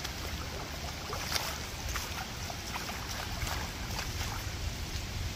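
Storm wind and rain: a steady rush with a low rumble of wind on the microphone and many small scattered ticks of drops.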